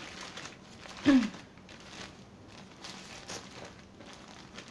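Paper sandwich wrapper rustling and crinkling as a sub is unwrapped, with a brief falling vocal sound about a second in.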